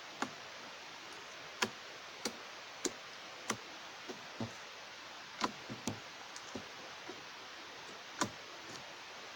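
Putty-like glitter slime being stretched and squished by hand, giving sharp, irregularly spaced clicks and pops, about a dozen of them.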